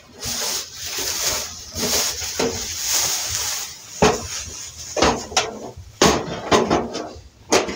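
Plastic wrapping rustling and crinkling as it is pulled off a two-burner sheet-metal gas stove, followed in the second half by several knocks and clunks as the stove is handled and set down on the table.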